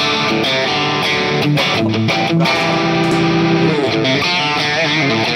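Electric guitar with a humbucker, played through a drive preset on a multi-effects pedalboard with its single-coil simulation switched on. Chords are strummed and held, then a sustained note with string bends near the end.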